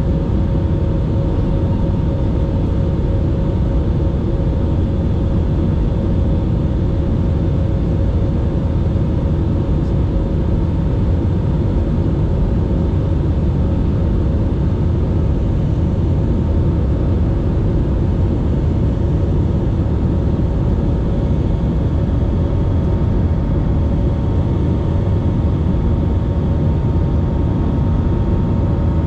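Cabin noise of an Airbus A320-family airliner climbing after takeoff: the steady, deep noise of its jet engines and the air rushing past, with a couple of faint steady tones over it.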